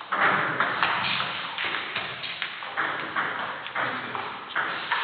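Table tennis rally: the celluloid-type ball clicking sharply off bats and the table, a run of quick taps about two a second with a short ring in the hall.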